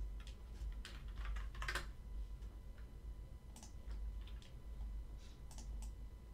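Typing on a computer keyboard with mouse clicks: irregular sharp clicks, bunched in the first two seconds and sparser after, over a steady low hum.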